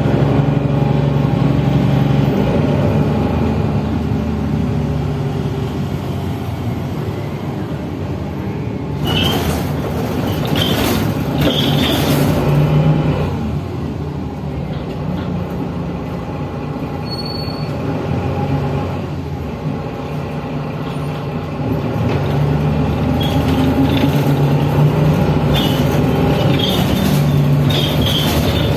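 Mercedes-Benz Citaro city bus heard from inside the cabin while driving: steady diesel engine hum rising and falling with the throttle, with road noise. Brief sharp rattles about nine seconds in and again in the last few seconds.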